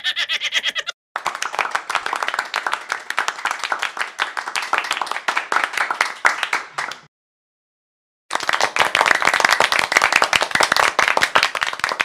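Applause: many hands clapping. It cuts out abruptly for a moment about a second in, and again for over a second about seven seconds in, before resuming.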